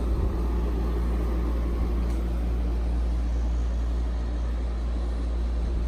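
Steady low machine hum with an even hiss over it, unchanging: the background drone of running equipment such as air-conditioning.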